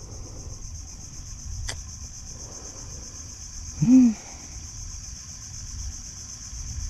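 Steady high-pitched drone of insects, over a low rumble. A sharp click about two seconds in, and a short grunt from a man's voice about four seconds in.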